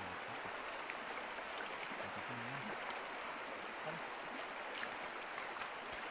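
Steady rushing of a stream flowing over stones.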